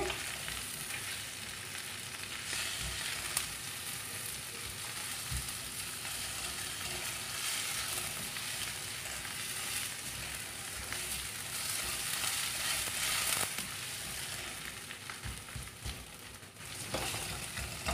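Diced potatoes with spices sizzling steadily in hot oil in a stainless steel kadai while they are stirred with a spoon, which now and then clicks against the pan.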